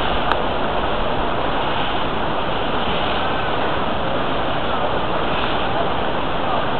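Steady rushing noise of wind on the microphone mixed with skis sliding over snow during a downhill run.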